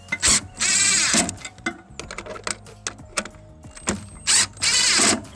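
Impact wrench fired in two short bursts of about half a second each, a few seconds apart, each led by a brief tap of the trigger. The bursts are kept short to snug bolts into a plastic part without cracking it or overtightening.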